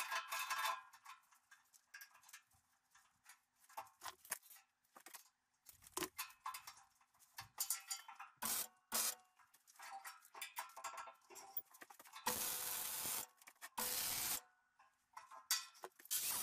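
Steel pieces and clamps clinking and knocking as parts are fitted on a welded steel frame, followed by two short bursts of MIG tack welding, each about a second or less, and a steady loud noise starting just before the end.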